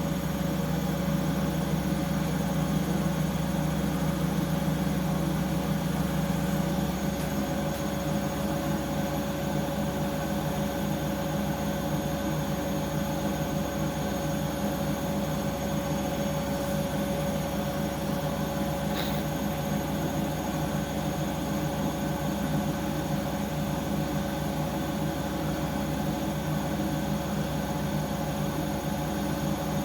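Washing machine running with a steady motor drone and a constant mid-pitched whine. The low hum eases slightly about seven seconds in.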